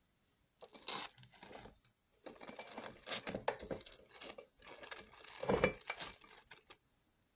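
Crinkling and rustling, as of paper or plastic being handled, in three spells of a second or two each.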